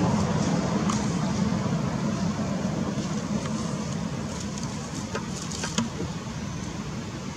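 Steady outdoor background noise, a low rumble with hiss that eases slightly, with a couple of faint clicks.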